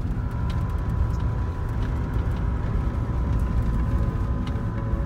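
Van's engine and tyres giving a steady low rumble, heard from inside the cab while driving along a road, with a faint steady whine and a few light ticks over it.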